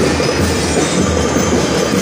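Drum and lyre corps playing, loud and steady, with the drums and lyres blurred together into a dense wash of sound.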